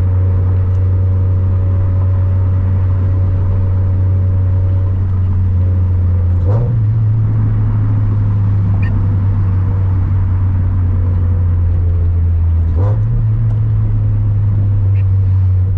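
Turbocharged 2013 Scion FR-S flat-four engine and road noise heard from inside the cabin: a steady low drone while driving. The note steps up slightly twice, about six and a half and thirteen seconds in, each time with a faint click.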